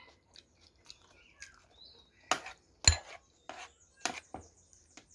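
A handful of sharp clicks and knocks of eating at a plate of food, the loudest about three seconds in, with faint bird chirps in the background.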